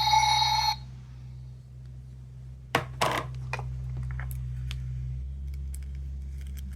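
A sound-making capsule toy's electronic ringing tone cuts off abruptly under a second in. It is followed by two sharp plastic clicks about three seconds in and lighter clicks and taps of handling, over a steady low hum.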